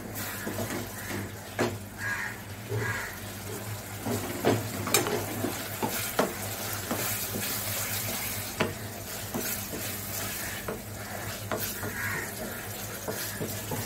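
A spatula stirs and scrapes fried prawns through thick masala in a metal kadai, with irregular clicks of the spatula against the pan over a steady low sizzle of the masala frying.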